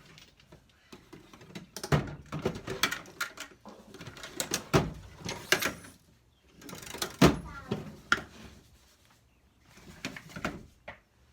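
Rummaging through a toolbox for a socket set: a run of sharp knocks, clinks and sliding sounds in clusters with short pauses, as tools and drawers are moved about.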